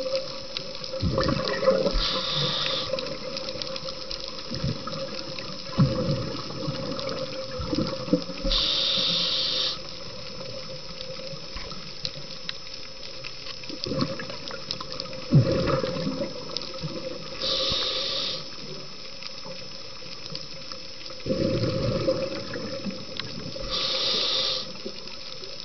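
Scuba diver breathing through a regulator underwater: a hiss on each inhalation, then a gurgling rush of exhaled bubbles, about four breaths spaced several seconds apart.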